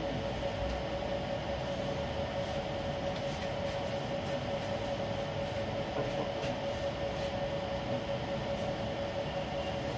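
Steady background hum in an office: even noise with one constant mid-pitched tone, unchanging throughout.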